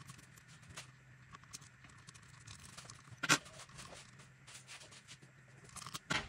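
Small clicks and scrapes of a hex key working the screws in the top of a Turin DF64P coffee grinder's burr housing, with one sharp metal click about halfway through and another near the end.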